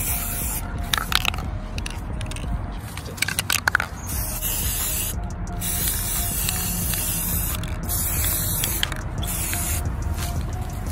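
Aerosol can of white spray paint hissing in several bursts with short pauses between, as a coat is sprayed onto a plastic phone case. A few sharp clicks sound about three to four seconds in.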